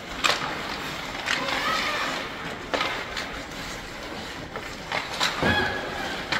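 Ice hockey practice in an echoing rink: sharp clacks of sticks and pucks several times, with young players' voices calling out now and then.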